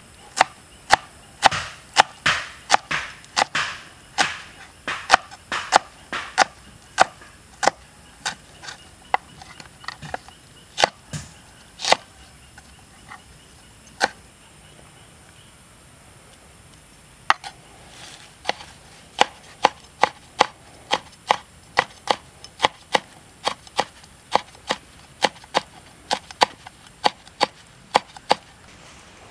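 Large cleaver-style knife chopping onion on a wooden cutting board: sharp knocks of the blade on the wood, about two a second. The chopping stops for about five seconds in the middle, with one knock in the gap, then starts again at the same pace.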